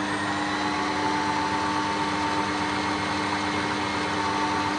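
Cecotec Mambo kitchen robot running at speed 4, its motor turning the blades through quince and lemon purée: a steady motor hum with a higher whine over it.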